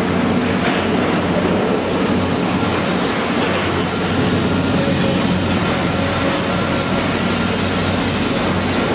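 Komatsu PC450LC high-reach demolition excavator running close by: a steady diesel engine hum under a dense mechanical clatter, with a few faint high squeaks about three seconds in.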